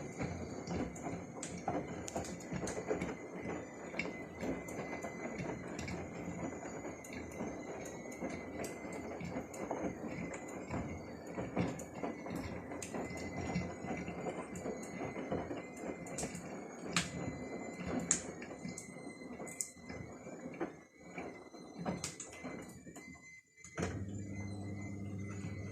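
Beko WUE8746N front-loading washing machine running a wash, its drum turning with a steady churning noise and many irregular clicks and knocks, over a thin steady whistle from a kettle on the stove. Near the end the machine noise stops and music begins.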